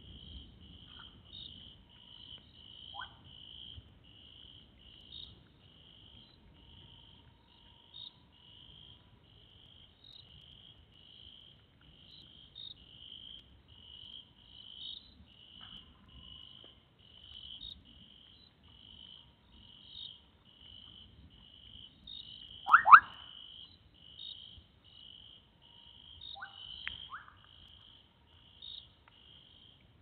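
An insect chorus keeps up a high chirp that repeats evenly throughout. Over it come a few short, rising 'quoip' calls of bubbling kassina frogs, faint near the start and near the end, with one loud call a little past two-thirds of the way through.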